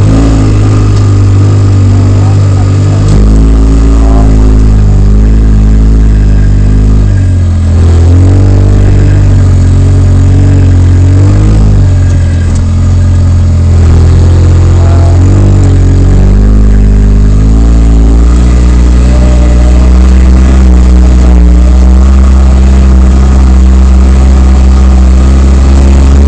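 Polaris RZR side-by-side's engine running hard, its speed rising and falling in steps with the throttle on rough trail, heard from inside the open cab.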